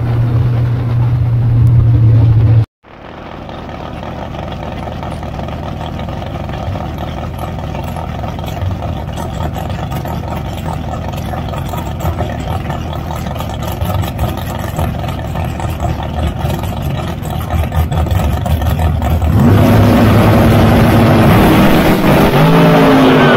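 Dragster engine running loudly, heard onboard, which cuts off abruptly a few seconds in. A dragster engine then runs steadily in the lanes and grows louder near the end.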